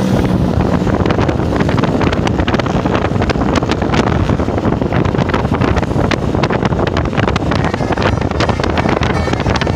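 Wind buffeting the microphone, loud and crackling, over the low rumble of vehicle engines.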